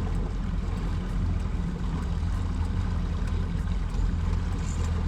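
Boat motor running steadily under way, a constant low drone with water and wind noise over it.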